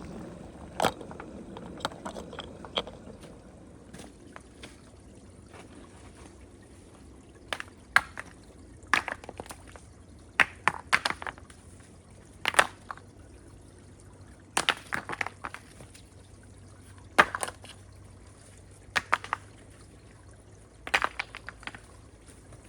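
Liquid splashing and pouring in short bursts, a few at a time every second or two. A low boiling simmer fades out near the start.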